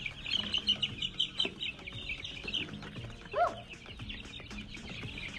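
A brooder full of young chickens cheeping continuously in many short, high-pitched chirps, with one louder, lower call about three and a half seconds in.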